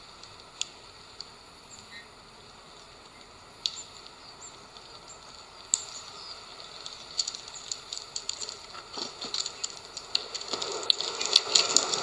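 Eurasian bullfinches feeding on a tray of sunflower seeds: scattered sharp clicks and taps of beaks cracking husks and shifting seeds, getting busier over the second half. A brief rustle near the end.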